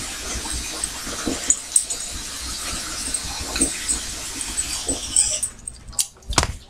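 Small dog sounds over a steady hiss that drops away about five seconds in, followed by a couple of sharp knocks.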